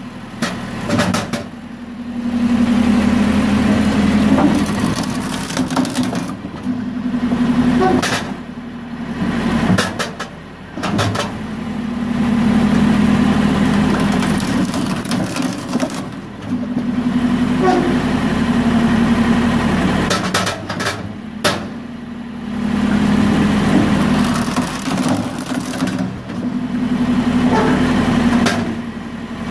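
Tractor-driven JC Bull 400 firewood processor working through a load of small logs. The tractor engine and machine run steadily, swelling under load for a few seconds at a time and easing off between, in cycles of about five seconds. Sharp knocks of wood and steel come every few seconds.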